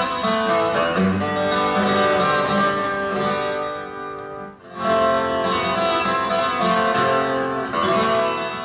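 Music with guitar played from a vinyl record on a Dual 1225 turntable, heard through the amplifier, with a short lull about halfway through.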